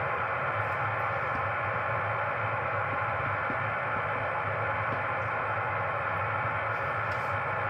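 Steady hiss and static of an HF amateur radio receiver tuned to a voice sideband channel, heard through its speaker between transmissions, with a low hum underneath.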